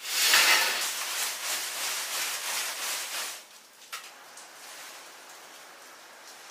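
Fresh tea leaves rustling and sliding over a large round bamboo tray as they are shaken, the 'shaking green' (yaoqing) step of Wuyi rock tea making. The rustling is dense for about three seconds, then drops to a faint hiss.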